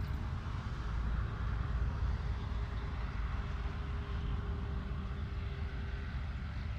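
Distant Pakistan Railways GEU40 diesel-electric locomotive running steadily, a low rumble under wind buffeting on the microphone. A faint steady hum comes in for a few seconds in the middle.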